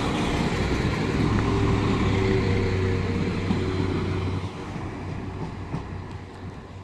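London Midland Class 172 Turbostar diesel multiple unit running into the platform, a steady low engine and wheel rumble that drops away about four seconds in as the train slows.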